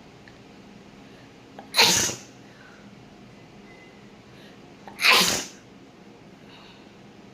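A woman sneezing twice, about three seconds apart, each a short loud sneeze with a small catch of breath just before it. The sneezes are provoked by tickling the inside of her nose with grass.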